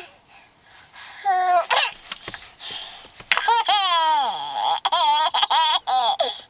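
Toddler laughing in high-pitched bursts, with one long laugh about three seconds in that slides down in pitch.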